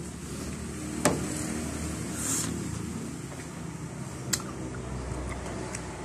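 A person eating santol fruit close to the microphone: chewing, with a few sharp mouth clicks. The loudest click comes about a second in and another just after four seconds, over a low steady background rumble.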